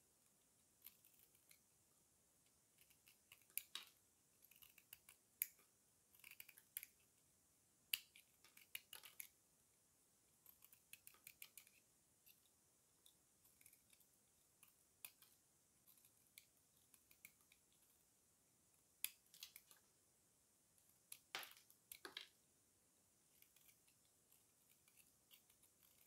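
Utility-knife blade shaving a bar of dry soap into curls and flakes: short, crisp, dry crackles and scrapes in irregular runs, a few of them much louder than the rest.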